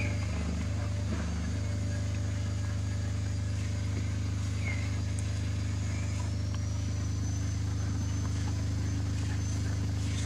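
A steady low motor hum, with a few faint, brief high chirps about halfway through.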